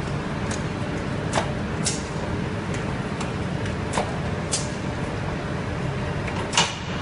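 Factory conveyor line carrying ceramic toilets, running with a steady low rumble and scattered sharp clicks and clacks, the loudest near the end.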